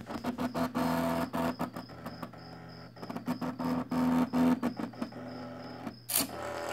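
Stepper motors of a small Arduino-driven pen plotter buzzing with a steady tone as the pen traces a rounded square, with many sharp clicks. The buzz stops for about a second around two seconds in, and a short harsh burst sounds near the end.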